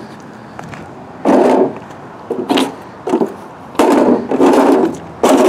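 Shoes stepping and scuffing on a folding curb ramp with a grip-coated surface: about half a dozen heavy thuds and scrapes as someone walks on it.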